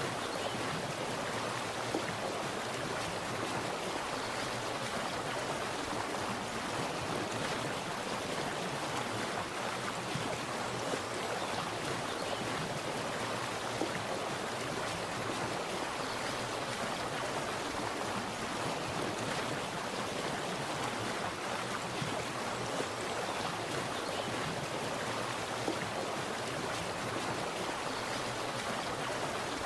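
Water splashing and rushing steadily, like a small stream or cascade, an even unbroken noise with small irregular splashes.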